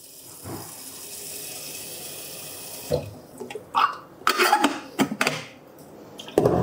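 Water running from a kitchen tap into a kettle for about three seconds, then stopping. A run of knocks and clinks follows as the kettle is handled.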